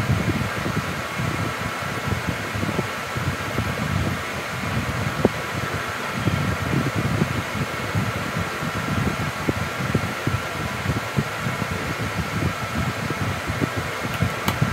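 Electric fan running steadily: a constant whirring hiss with an uneven low rumble of moving air.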